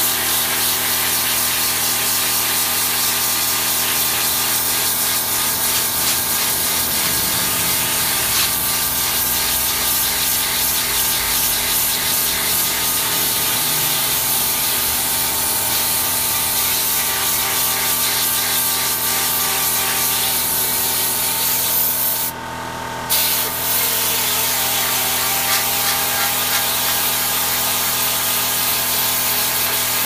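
High-pressure water jet from a trigger spray gun hitting the aluminium fins of an air conditioner's indoor unit, a steady loud hiss, as the tar-stained coil is washed. The jet cuts off for under a second about three-quarters of the way through, then resumes.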